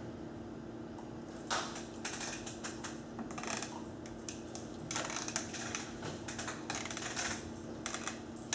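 Computer keyboards being typed on, in several spells of quick key clicks with pauses between, over a steady low electrical hum.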